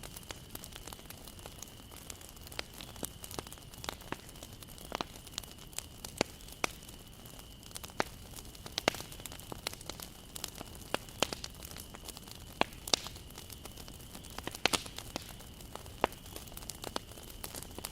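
Wood fire burning, with irregular sharp crackles and pops from the wood over a low hiss. A faint steady high tone runs underneath.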